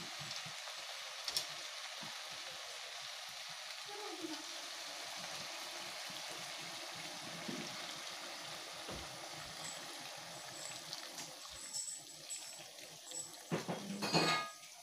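Water poured from an aluminium kettle into a hot wok of frying pork and vegetables: a steady hiss of pouring and sizzling that thins out after about twelve seconds, with a brief louder noise near the end.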